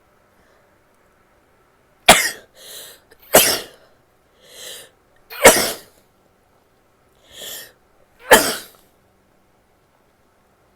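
A woman sneezing four times in a row, each sneeze short and sharp, with a quick breath in before the last three; the first comes about two seconds in.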